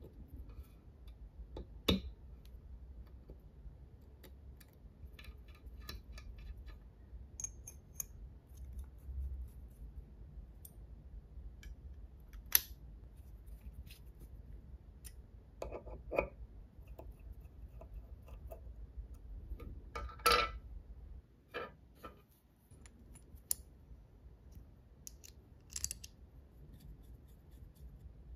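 Small metal parts of an all-metal engine model kit clicking, tapping and scraping as they are handled and fitted: tweezers setting a tiny ball bearing, a small screwdriver turning tiny screws into a metal cover. Scattered light clicks, with a few sharper metal knocks standing out.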